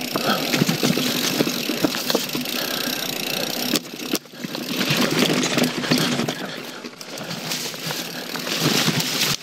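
YT Jeffsy full-suspension mountain bike riding down a dirt forest trail: a steady rush of tyre and riding noise with frequent sharp knocks and rattles as the bike hits bumps and roots. The noise dips briefly about four seconds in, then builds again.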